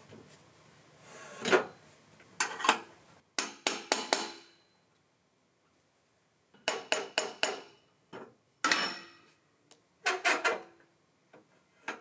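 Freshly milled cedar lap-siding boards knocking and clattering together as they are handled and stacked: irregular bursts of two to five sharp wooden clacks, some with a short ring, separated by pauses.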